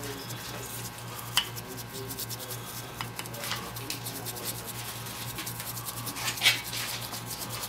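Paintbrush scrubbing and dabbing paint onto a plaster rock casting: a dry, scratchy rubbing with a few short ticks and one louder scrape about six and a half seconds in.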